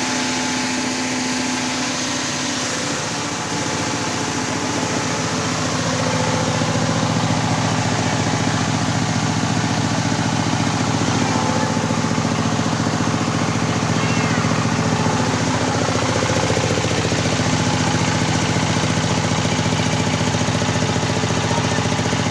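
Engine-driven corn-cracking machine running steadily with a fast even pulse, louder from about six seconds in.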